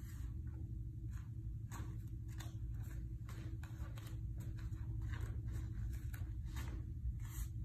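Bare feet shuffling and stepping on foam floor mats, with uniform fabric swishing, during a taekwondo form: a quick irregular run of soft brushes and light taps over a steady low hum.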